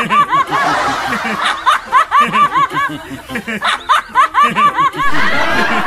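People laughing: a high-pitched giggle in several quick runs of short 'he-he-he' syllables, about five a second, over lower laughter.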